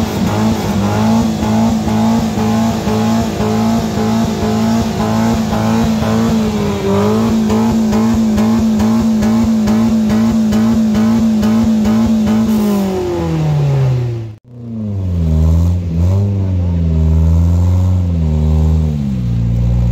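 4x4 SUV engine held at high revs while it struggles to climb out of deep mud. About two-thirds through, the revs fall away, there is a brief drop-out, and then the engine is revved up and down unevenly at lower speed.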